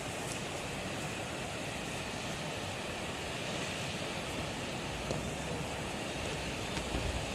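Steady rushing roar of a waterfall, falling water at an even level throughout.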